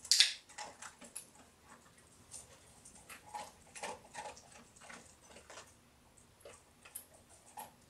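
Small dog taking kibble from a hand: irregular small ticks and crunches. A sharp noise at the very start is the loudest sound.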